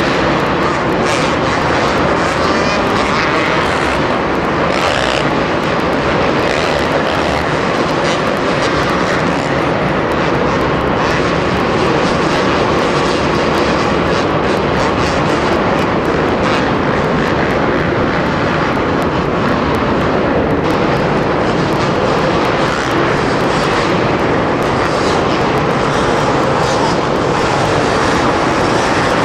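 Two-stroke supercross bikes running hard around the track in practice, a loud continuous buzz of several engines revving and overlapping with no break.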